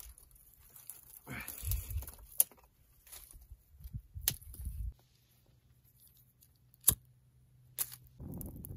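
Dry twigs rustling and snapping as a small wood fire is laid, with a few sharp clicks from a disposable lighter being struck, the loudest about seven seconds in. Near the end a steady low rushing noise sets in.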